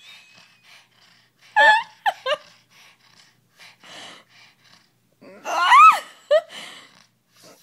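Pug giving high-pitched excited yips and whines in two short bursts, with faint breathing sounds between.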